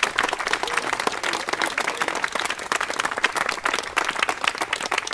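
A crowd clapping and applauding, many hands at once.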